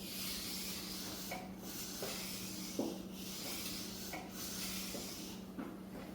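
A stiff brush scrubbing inside an engine block during cleaning with alcohol, in about five long scrubbing strokes with short breaks between them.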